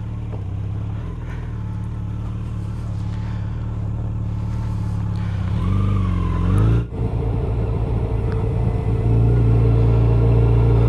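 Yamaha FJR1300's inline-four engine idling steadily, then picking up as the motorcycle pulls away from a stop, with a brief drop about seven seconds in, and then running louder under acceleration near the end.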